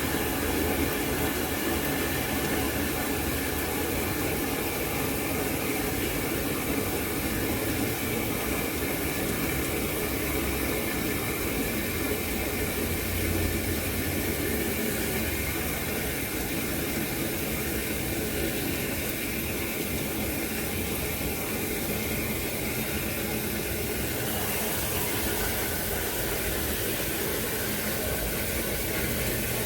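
Water running steadily into a tank, a continuous rushing hiss with no break.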